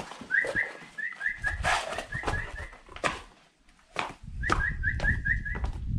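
A person calling dogs with quick, short, repeated whistles, about four a second, in two runs with a pause between, over a few scattered knocks.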